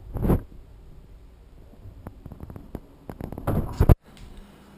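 Handling noise from a hand-held camera: a brief rustle, then a string of small clicks and knocks building to a louder scraping rustle that cuts off suddenly about four seconds in.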